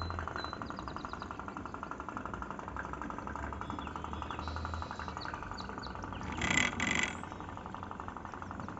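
Tin pop-pop boat's flash-steam engine running, a rapid, even popping as its heated boiler pulses water out of the exhaust tubes and drives the boat along. About six and a half seconds in, two brief louder hissing noises come over it.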